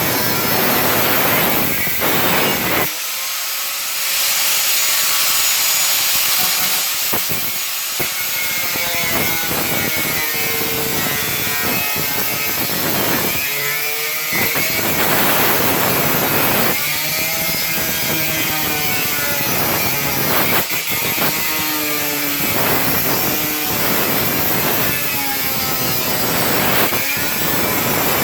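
Angle grinder cutting through a panel: a loud continuous grinding hiss with a whine that rises and falls in pitch as the disc bites and eases, letting up briefly a couple of times.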